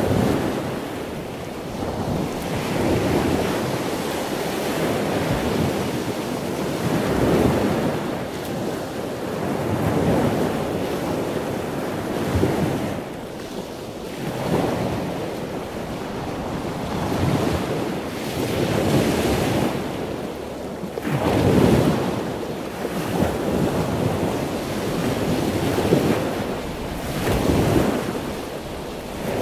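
Steady rushing noise that swells and eases every two to three seconds.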